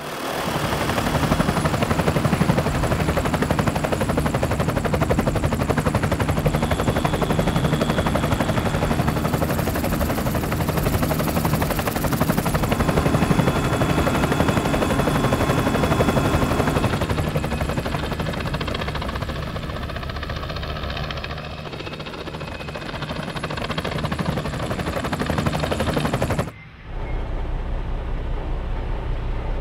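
Firefighting helicopter running close by, its rotor blades chopping rapidly under a faint high steady whine. Near the end the sound cuts abruptly to a duller, deeper rumble.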